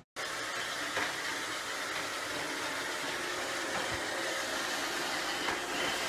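iRobot Roomba robot vacuum running on a tile floor: a steady, even hum of its motors and brushes.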